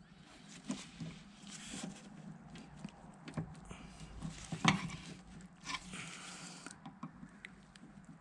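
Hands working a power-window motor out through an access hole in a car door's inner panel: scattered clicks, knocks and scraping rustles, with one sharper knock about halfway through.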